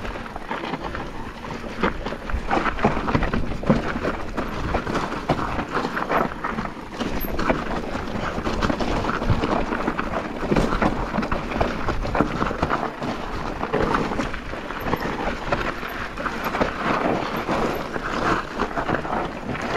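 Focus SAM2 enduro mountain bike descending rocky singletrack: tyres rolling and crunching over stones, with a dense, constant clatter of chain and frame rattles and knocks.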